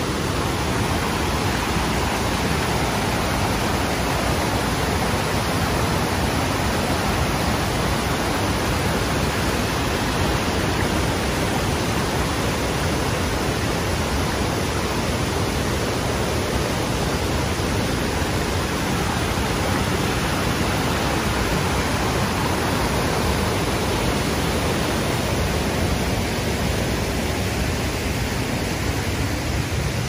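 River water pouring over a small stone weir and rushing through white-water rapids, a steady, even rushing that does not let up.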